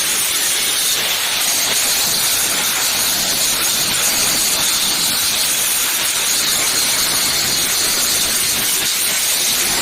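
Angle grinder grinding the welds on a steel cage, a steady high hissing whine of the disc on metal with no break.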